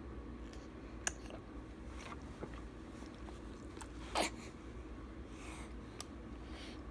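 A baby feeding from a bottle: soft sucking and swallowing noises with a few short clicks from the mouth on the teat. The loudest click comes a little after four seconds in.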